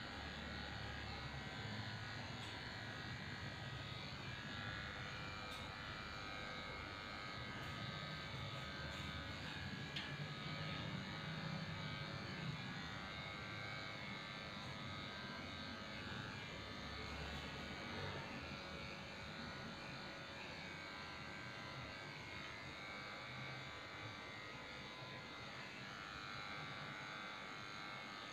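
Electric dog grooming clippers running with a steady buzz as they shave down a Shih Tzu's coat, with a few faint clicks.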